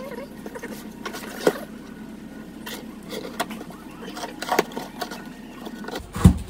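A cardboard shipping box being handled and opened by hand: scattered scrapes, rustles and taps, with a louder knock near the end.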